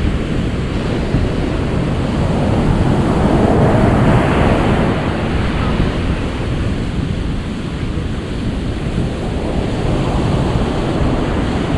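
Ocean surf: a steady wash of waves, one swelling up and breaking about four seconds in, another rising near the end, with wind.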